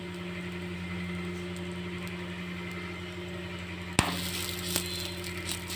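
A steady low hum throughout, with one sharp tap about four seconds in and light handling noises after it as a second sweet poli is laid by hand on the hot iron tawa.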